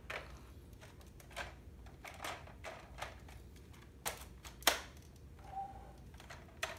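Scattered plastic clicks and knocks from a Zuru X-Shot Regenerator toy dart blaster as its stock is fitted on and the blaster is handled, with the sharpest click about three-quarters of the way through.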